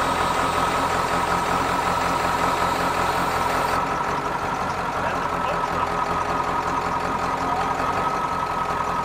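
A 1995 Ford Powerstroke 7.3-litre turbo-diesel V8 idling steadily, with a steady high whine over the engine's hum.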